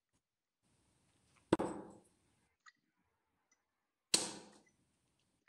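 Two darts thudding into a Unicorn bristle dartboard, about two and a half seconds apart, each a sharp hit that dies away over about half a second.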